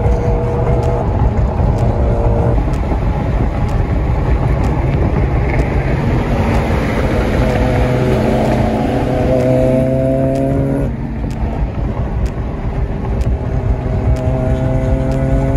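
Car engines on the move: a steady engine drone with road noise. Past the middle an engine revs up, its pitch climbing for a couple of seconds before it drops away sharply, and it climbs again near the end.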